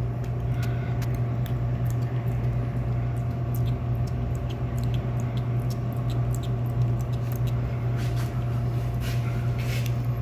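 A steady low machine hum, with faint scattered small clicks and scratches as fingers and a toothpick peel excess Plasti Dip film from the edge of a car's rear wing.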